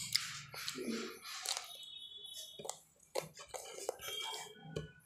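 A spoon tapping and scraping against a small pot: a string of light clinks and taps, some with a short metallic ring.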